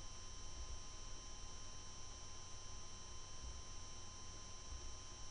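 Steady electrical hum and hiss of the recording, with a few faint steady high whines and a low irregular rumble underneath.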